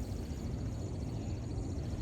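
Outdoor ambience: a steady low rumble with a fast, even, high-pitched pulsing trill running over it.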